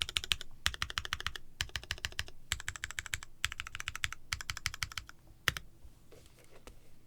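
Mechanical keyboard with retooled Cherry switches on Kailh stems and an aluminium plate, typed on in quick bursts of rapid keystrokes separated by short pauses. Near the end comes a single louder keystroke, then the typing stops.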